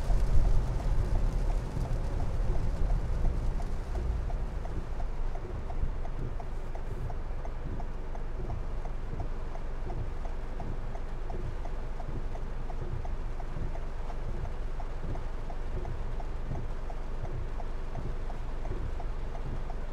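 Heavy rain on a car's roof and windscreen, heard inside the cabin, over a low rumble of tyres on the wet road that dies down after about five seconds as the car stops. Once it stops, the turn signal ticks steadily and regularly.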